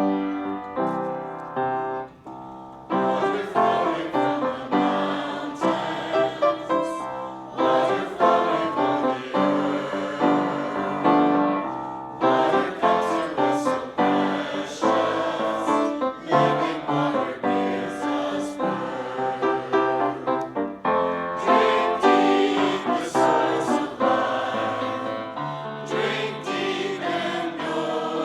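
Church choir singing an anthem with piano accompaniment. The piano plays alone at first, and the choir comes in about three seconds in.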